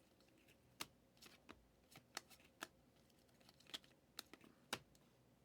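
2023 Prizm football trading cards being handled and flipped through by hand: faint, sharp clicks and snaps of card against card, about a dozen at irregular intervals.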